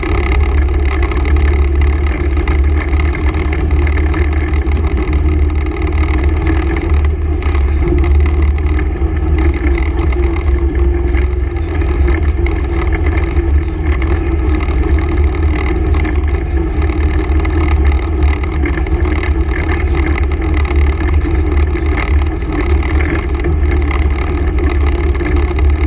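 Honda ATV's engine running at a steady pace while riding a dirt trail, with no big revs.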